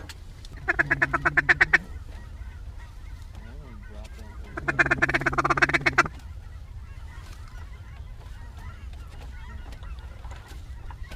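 Two rapid runs of duck-like waterfowl calling, each about a second and a half of quick, evenly pulsed notes at roughly ten a second, the second run a few seconds after the first.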